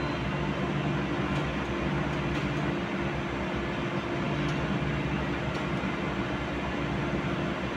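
Machine running with a spiral bevel ring gear and pinion turning in mesh: a steady mechanical hum with a low, even drone, amid workshop machinery noise.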